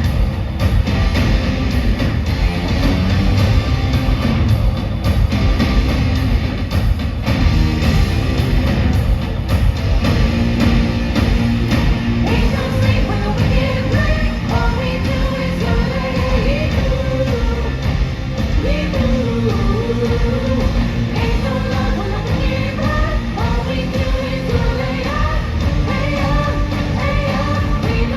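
Loud show music with a heavy, driving beat, played over a sound system; a sung melody comes in about halfway through.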